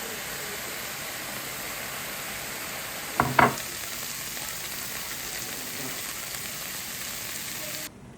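Food frying in a pan: a steady sizzle, with two quick knocks about three seconds in, and the sizzle cutting off suddenly near the end.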